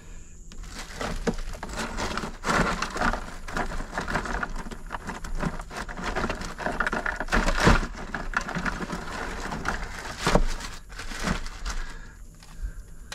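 Rummaging through a cooler: a plastic bag crinkling and rustling as things are shifted about, with a couple of louder knocks in the second half.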